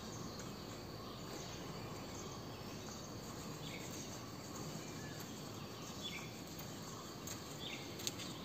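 Faint, steady insect trilling over outdoor hiss, with a few short bird chirps and a single sharp click near the end.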